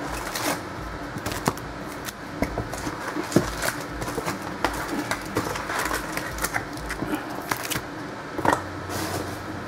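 Crinkling and rustling of foil trading-card pack wrappers being handled and opened, with scattered sharp clicks and crackles.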